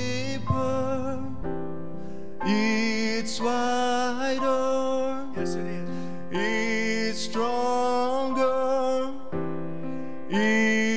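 Worship band music: vocalists singing a slow song to keyboard accompaniment, in held phrases with short breaks between them.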